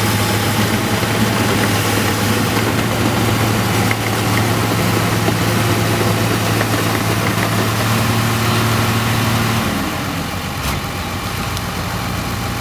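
Rice combine harvester's engine running steadily; about ten seconds in its note drops and the sound eases off a little.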